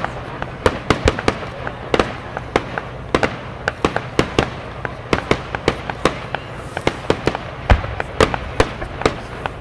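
Aerial fireworks display: a rapid, irregular string of sharp bangs and crackles from bursting shells, several a second, with one deeper boom about three quarters of the way through.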